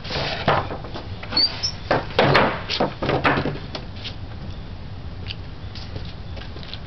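Folding wooden workbench being swung into position by hand: a quick run of wooden knocks, clunks and scrapes over the first three or four seconds, with a brief squeak about a second and a half in, then only a few light taps.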